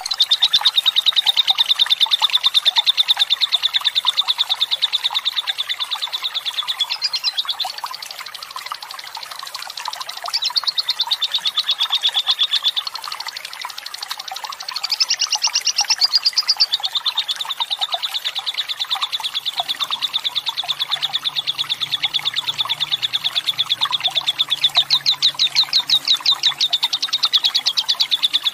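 Lovebird giving its long 'ngekek' chatter: a fast, rattling run of rapidly repeated high notes held for several seconds at a time, broken by two short pauses. It is mixed over a soft trickle of running water.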